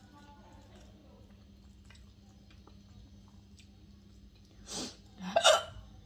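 A woman's hiccups: two short, sudden gulping bursts about half a second apart near the end, the second louder.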